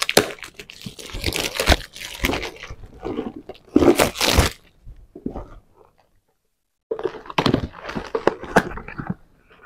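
Perfume box packaging being opened by hand: irregular crinkling, crackling and tearing of the wrapping and cardboard. It breaks off into total silence for about a second, six seconds in, then resumes.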